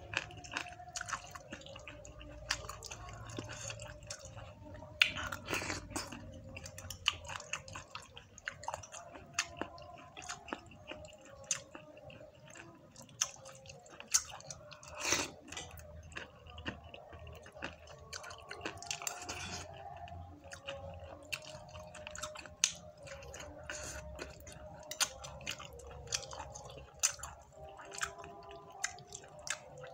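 A person chewing and slurping spicy chicken noodles close to the microphone, with many irregular wet smacks and clicks.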